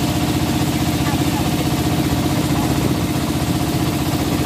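Engine of a wooden river boat running steadily underway, a fast, even chugging beat.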